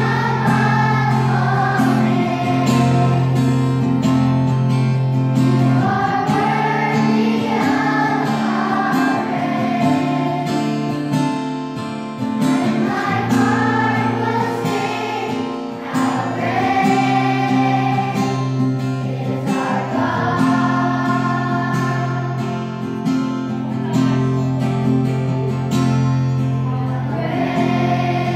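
A children's choir singing a song together with instrumental accompaniment, sung phrases over steady held low notes.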